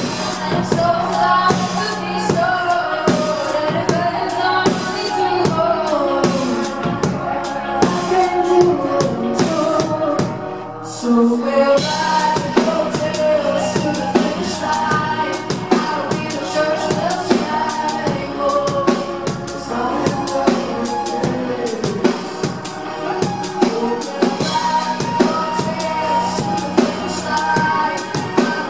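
Live electropop band: a female lead vocal sung over keyboards and a drum kit with a steady beat. About eleven seconds in the music thins for a moment, then the full beat comes back in.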